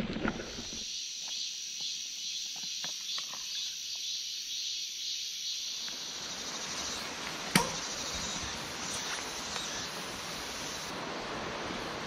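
Outdoor ambience of a steady high insect drone. About halfway through, the rushing of a stream comes in, and there is one sharp click.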